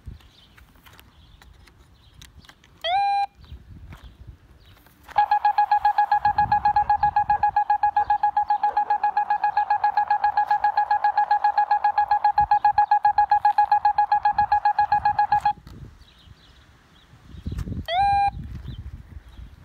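Handheld cable locator receiver beeping: a short rising chirp, then for about ten seconds a loud pulsing tone at about six beeps a second as it picks up the signal from the induction clamp on the buried cable, then another short rising chirp near the end.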